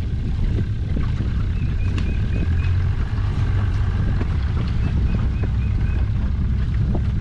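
Fishing boat's motor running steadily at trolling speed, a continuous low rumble.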